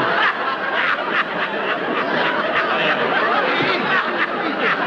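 Studio audience laughing, with no break.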